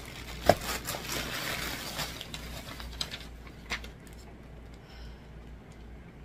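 Plastic poly mailer bag rustling and crinkling as a package is handled and set on a wooden table, with a sharp knock about half a second in and a couple of lighter clicks later. The handling goes quiet after about four seconds.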